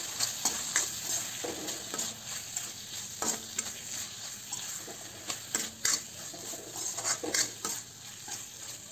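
Metal spatula stirring and scraping grated raw turmeric and peas around an iron kadhai, in irregular strokes over a steady low sizzle. The sizzle comes from the mixture frying in ghee that has begun to separate, the sign that the masala is cooking through.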